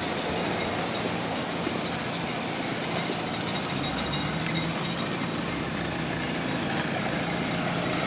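Steady, even background noise of distant road traffic with no distinct events.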